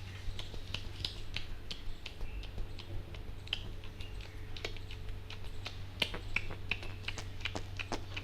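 Rapid, irregular hand taps and snaps of an Indian head massage: fingers and palms striking the head, coming thicker in the last couple of seconds, over a steady low hum.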